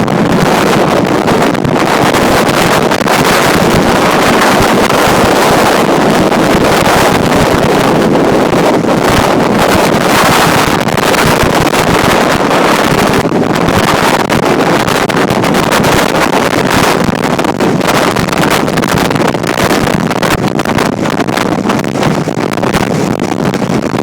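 Hurricane-force wind of over 80 knots blasting across the microphone in a loud, steady rush of noise with no let-up.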